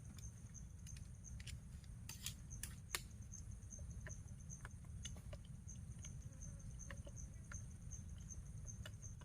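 Insects trilling steadily on one high pitch, with scattered sharp clicks and ticks, the loudest about three seconds in, over a low rumble.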